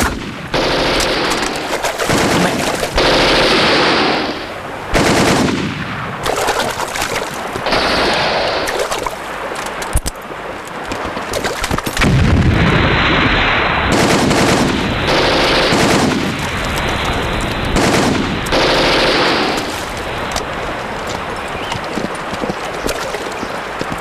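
Film battle soundtrack of sustained gunfire, rifle shots and automatic bursts, with a heavier explosion about halfway through that throws up water from a stream.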